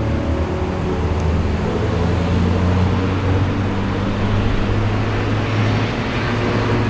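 Steady low rumble of road traffic with an even hiss over it. A few soft music notes fade out in the first few seconds.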